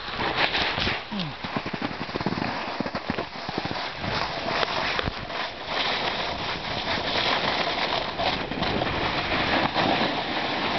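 Snow scraping and hissing under a moving board or skis on a packed slope, a steady rough rush with irregular crunchy scrapes, mixed with wind buffeting the microphone.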